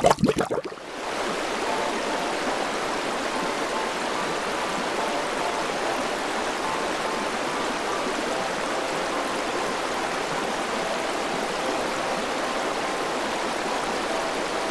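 Shallow river running steadily over stones, a continuous babbling rush of water. It opens with a brief, loud gurgling splash at the water's surface.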